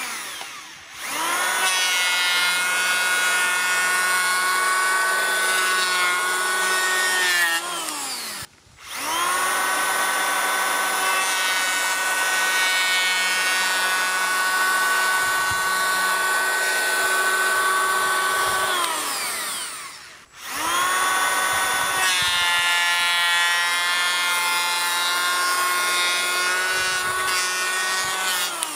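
Popoman (Teccpo) 18V cordless electric planer with twin blades running at speed and shaving a wooden beam in three long passes at shallow cuts of 0.1 to 0.4 mm. Each pass is a steady high whine that winds down with a falling pitch when the trigger is released, about 8 and 20 seconds in and again near the end.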